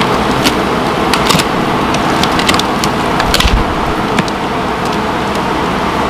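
Old wooden lapboard siding being pried off a shed wall with a flat pry bar: a scatter of sharp cracks and creaks of splintering wood in the first few seconds. A steady loud hiss runs underneath.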